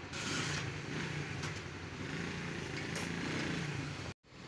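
A small engine running steadily, with a low hum under outdoor noise. The sound cuts out for an instant near the end.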